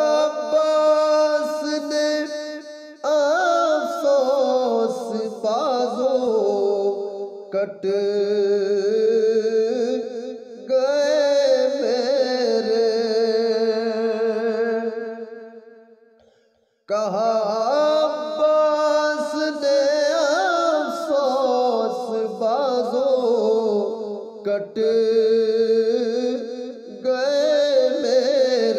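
A man singing a manqabat, an Urdu devotional poem, in long, ornamented, drawn-out phrases. A little over halfway through, one phrase fades away to a moment of silence before the singing starts again.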